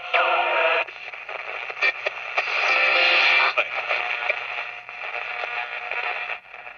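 1960s Kensington transistor AM radio being tuned across the dial: static and hiss from its small speaker, with a whistle falling in pitch in the first second as the dial passes a station. It is playing at good volume now that the dried-out electrolytic capacitors in its audio amplifier have been replaced.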